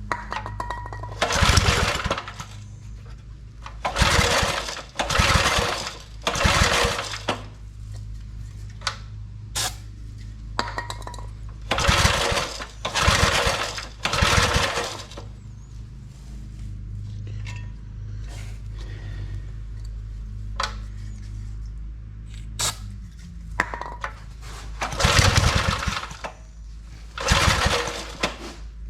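Old 5 hp Briggs & Stratton engine being cranked with its pull-cord recoil starter: eight hard pulls in three groups, three, three and then two, and it does not catch. The choke is on and the fuel system is still dry. A steady low hum runs underneath.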